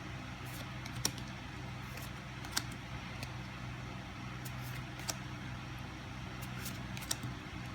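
Trading cards being handled and flipped through one by one: a few short, sharp card snaps a second or two apart, over a steady low room hum.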